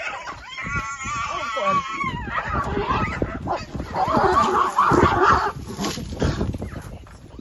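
Zebra screaming in distress during a cheetah attack on a foal: a wavering high-pitched scream, then a jumble of overlapping calls and commotion that fades near the end.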